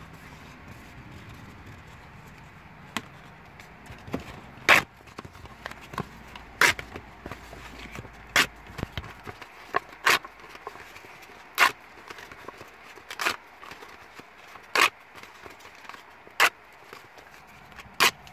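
A strip of paper scratch-off lottery tickets being torn apart along the perforations, one ticket at a time. There is a short, sharp rip about every second and a half, about nine in all, starting about five seconds in.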